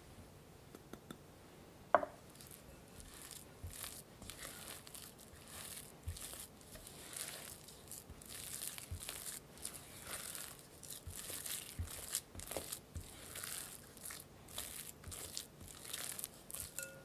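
A spatula mixing and mashing sweet potato with ground almonds against a glass bowl: a run of soft, squishy scraping strokes. Before the strokes begin there is a single sharp knock about two seconds in.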